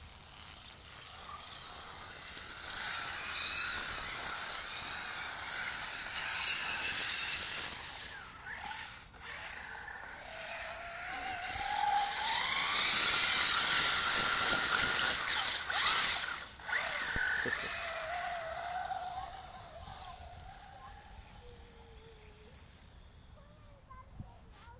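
Radio-controlled truck driving and drifting on snow-covered ice: its motor and drivetrain whine up and down with the throttle while the tyres spray snow with a hiss. It grows louder to a peak about halfway through as it passes close, cuts out briefly twice, then fades away.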